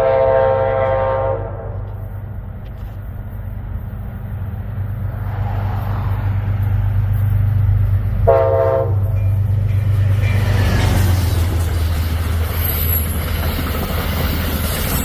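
Amtrak locomotive's multi-chime air horn: a blast that cuts off about a second in, then a short toot around eight seconds in, over the steady low rumble of the locomotive. The train's running noise builds toward the end, with a faint high squeal near the end.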